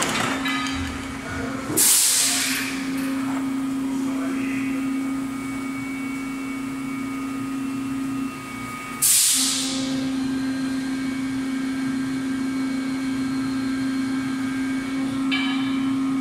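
Yawei 24-cavity PET preform injection moulding machine running through its cycle: a steady humming tone that breaks off briefly about eight seconds in, with two short loud hisses, about two seconds in and about nine seconds in.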